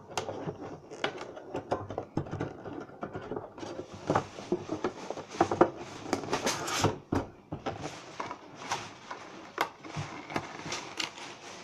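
Thin clear plastic tray insert being handled and pressed down into a metal card tin: irregular crackling, clicking and scraping of the plastic against the tin's rim, busiest about six to seven seconds in.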